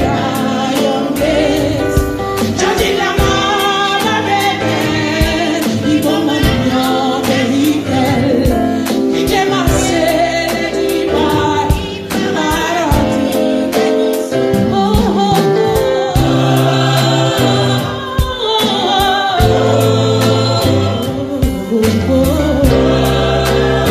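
Gospel choir singing with a woman leading on microphone, backed by an electronic keyboard and a steady beat.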